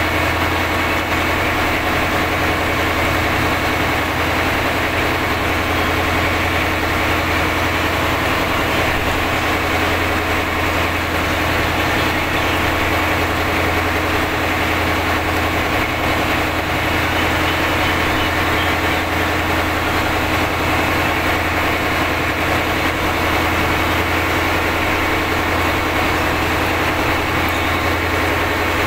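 Steady drone of the towing boat's engine running under load, a constant low hum that does not change, with a hiss of wind and sea over it.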